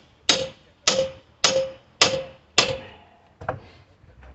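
Mini sledgehammer blows on a steel pry bar, driving it in to prise apart stubborn pallet boards. Five hard, evenly paced strikes about every 0.6 s, each with a brief metallic ring, then a lighter knock near the end.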